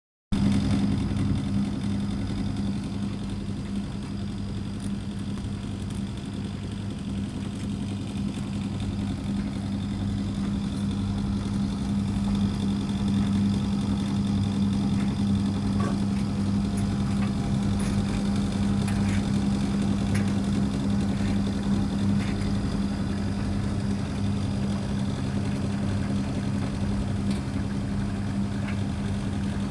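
Elektra Bregenz TKFN 7201A tumble dryer making an odd steady hum, with a few faint clicks. The noise carries on even when the drum is not turning, which the owner takes for some pump.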